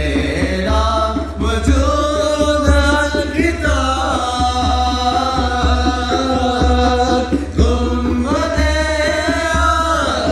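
Nasheed: a sung salawat melody with long gliding vocal lines over a steady low pulsing beat, mixed with an 8D panning effect.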